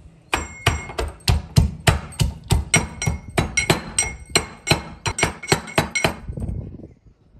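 Steel pestle pounding garlic cloves in a steel mortar: about three ringing metallic knocks a second, then a short stretch of softer mashing near the end as the cloves turn to paste.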